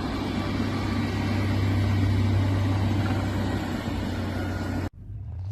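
A vehicle's engine running steadily, a low hum with a rushing hiss over it; the sound cuts off abruptly near the end and a quieter background follows.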